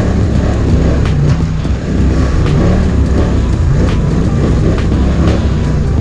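Polaris ATV engine running steadily under way on a bumpy dirt trail, with occasional knocks from the ride.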